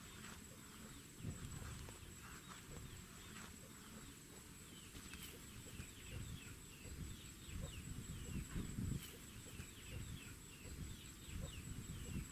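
Small birds chirping in quick series of short falling notes, thickest in the second half, over a faint low rumble.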